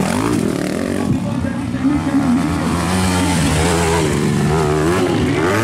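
Motocross dirt bike engines revving, the pitch rising and falling again and again as the riders open and close the throttle.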